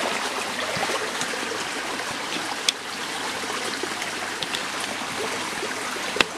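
Steady rush of a flowing stream, with two sharp clicks, one near the middle and one near the end.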